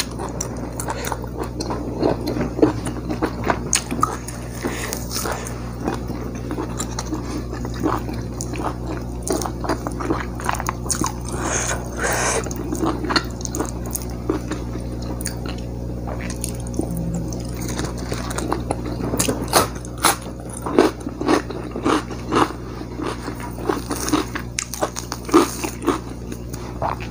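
Close-miked chewing and biting of fried duck, with irregular wet mouth clicks and smacks over a steady low hum.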